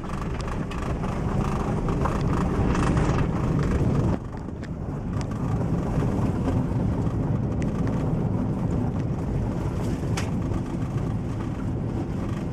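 Car engine and tyre noise heard from inside the cabin while driving along a rough, narrow country lane, with a few small knocks as the car bounces over the uneven surface. The noise drops suddenly about four seconds in, then builds again.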